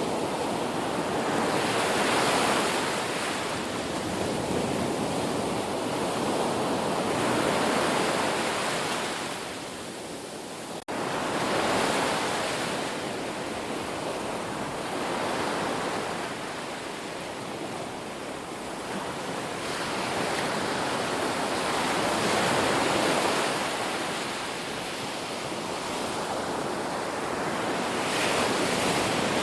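Sea waves breaking and washing in, swelling and ebbing about every five seconds. There is a brief dip and dropout about eleven seconds in.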